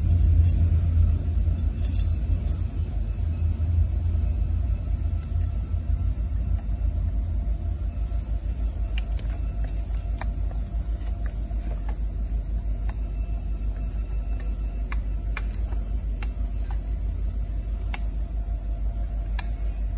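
Steady low background drone with a few faint clicks and taps of chainsaw engine parts being handled, as the piston and connecting rod of a seized Stihl MS 362 are worked by hand.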